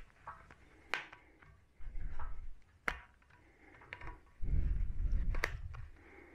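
Hands working a metal retaining ring onto a rubber tie rod end boot: three sharp metallic clicks, with low rumbling handling noise in between.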